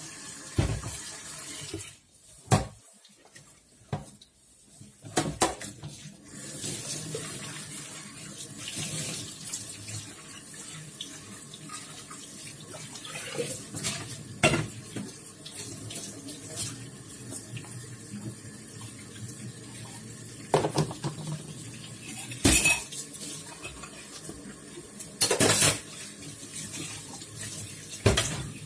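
Washing up at a kitchen sink: tap water running steadily, with dishes and cutlery clinking and knocking now and then. The water stops briefly a couple of seconds in, then runs again.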